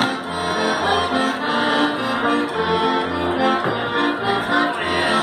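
Accordion-led traditional Bavarian dance music with a steady bass note on the beat, about two a second.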